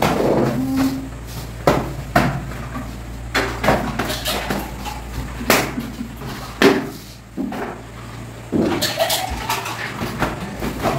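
Irregular sharp knocks and scrapes of hand tools chipping old, poorly bonded paint off a plastered wall, over a steady low hum.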